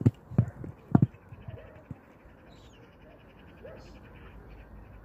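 Gulls calling a few times, short falling cries, over a faint steady background. Three heavy dull thumps come in the first second and are the loudest sounds.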